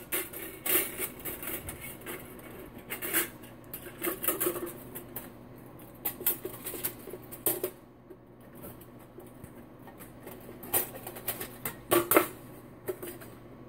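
Metal panels and ash pan of a folding camp stove clicking and clattering as they are handled and refitted, irregular light knocks with a few louder ones near the end.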